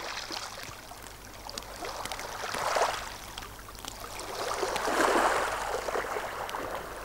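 Small waves washing on a pebble shore, a rushing water sound that swells about three seconds in and again about five seconds in.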